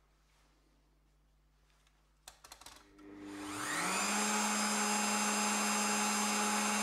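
Electric household meat grinder with a sausage-stuffing tube switched on: a few clicks, then the motor runs up to speed with a rising hum about three seconds in and keeps running steadily.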